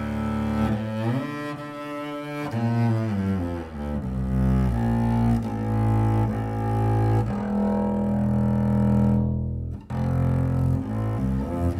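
Shen Gemunder Willow Flatback 7/8 double bass played arco on well-used Obligato strings: a bowed line of several sustained notes, with a slide up about a second in, a long held note, and a brief break near the end.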